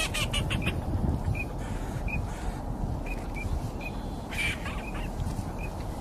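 Ducks calling: short high peeps spaced about a second apart, with two brief noisier flurries, one near the start and one after about four seconds, over a steady low wind rumble on the microphone.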